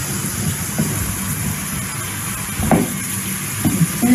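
Wooden spoon mixing a soft ricotta gnudi dough in a mixing bowl, with a few soft scraping strokes over a steady hiss.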